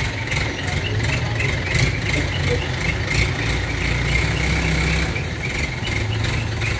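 Steady low machinery drone with a quick, regular ticking above it, about three ticks a second.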